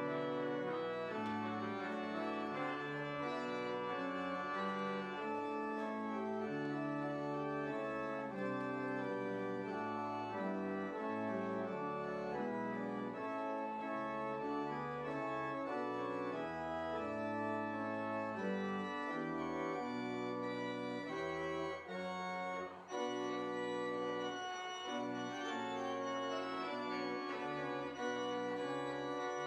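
Church organ playing slow, sustained chords that change about once a second, with a brief break about three-quarters of the way through.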